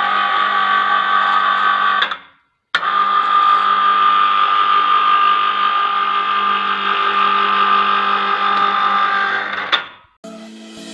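Electric hoist motor of a portable mini crane running with a steady whine while carrying a loaded wheelbarrow of over 50 kg. It stops about two seconds in, starts again half a second later, and runs on until it cuts off near the end.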